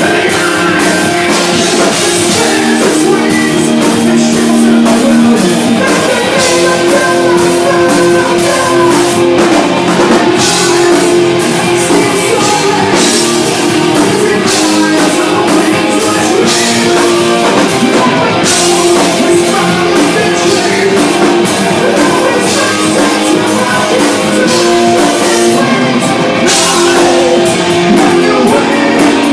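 Live rock band playing loudly: a drum kit and distorted electric guitar, with a singer.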